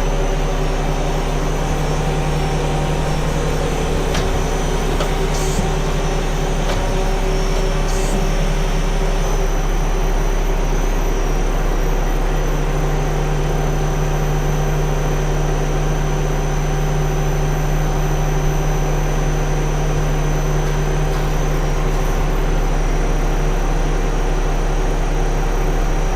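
Nakamura TMC-18 CNC turning center running a program: a steady, really quiet hum of spindle and axis drives, with a few faint clicks in the first eight seconds. The spindle runs on brand-new bearings.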